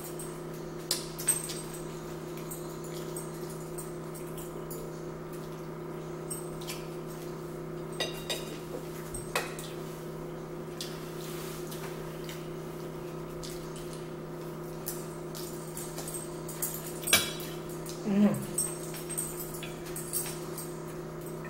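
Eating at a table: scattered sharp clicks and taps on plates and hands picking up food, with chewing noises, over a steady low hum.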